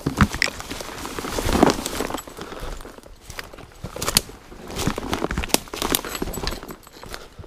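Footsteps on dry leaf litter and twigs down a steep forest slope, with branches brushing past and clothing rustling: irregular crackles, snaps and thuds.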